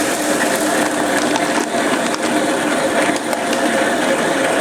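Motorized, belt-driven grain mill crushing brewing grain: a steady grinding rattle of many small clicks over a faint even hum from the motor and belt drive.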